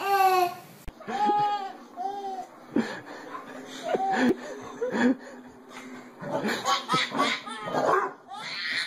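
A baby laughing in repeated bursts, with a dog barking among the laughs.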